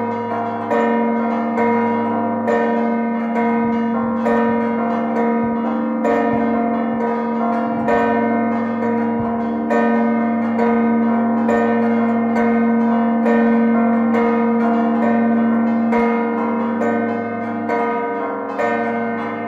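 A set of six church bells rung in a Maltese closing peal marking the end of a feast. Loud, overlapping strokes come about once a second over a deep hum that rings on throughout.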